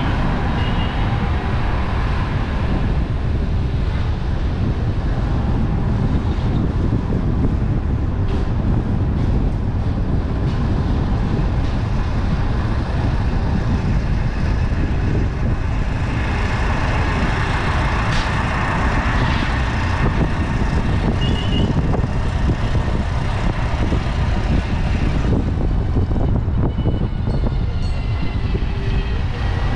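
Road noise of a vehicle driving along: a steady, loud low rumble of tyres, engine and wind, with a brighter stretch of noise about two-thirds of the way through.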